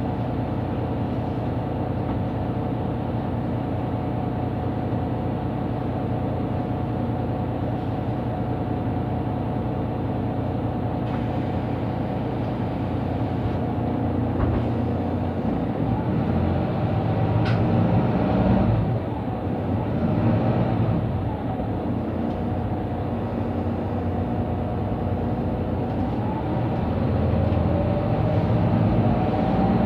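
Mercedes-Benz Citaro C2 city bus's diesel engine running as the bus drives, heard from inside the bus. About halfway through the engine note climbs, drops briefly and climbs again as the bus accelerates.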